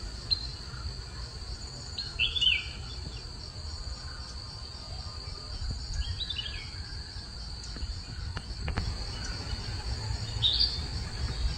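Insects trilling steadily at a high pitch, with a bird giving short chirping calls a few times, loudest about two seconds in.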